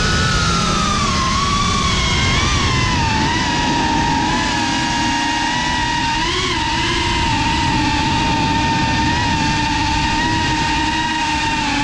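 The brushless motors and propellers of a GEPRC Cinelog 35 cinewhoop FPV drone whine over steady rushing air. The pitch falls over the first few seconds, then holds steady with a few brief blips of throttle.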